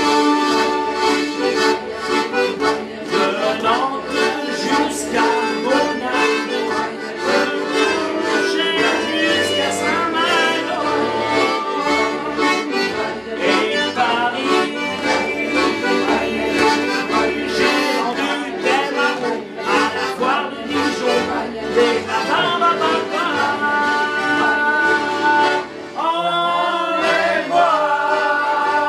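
Accordion playing a traditional tune in held, steady chords and melody lines, with a brief dip in loudness near the end.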